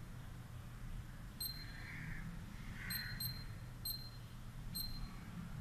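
Sokkia SET530R total station's keypad beeping as its arrow keys are pressed: five short, high beeps, unevenly spaced, two of them close together about three seconds in.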